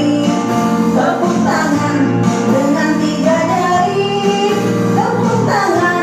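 Music: a song with singing over a steady instrumental accompaniment.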